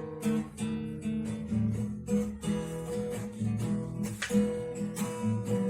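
Acoustic guitar strumming chords in a steady rhythm: the introduction to a sung song.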